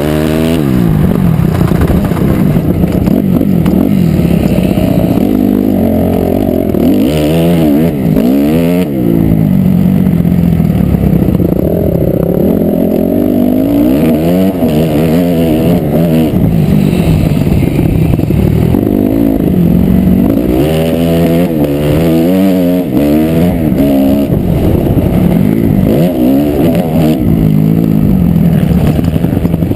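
2008 Honda CRF250R's single-cylinder four-stroke engine under hard riding, its pitch climbing and dropping again and again as the throttle is opened, the gears are shifted and the throttle is rolled off. The engine is loud and close throughout.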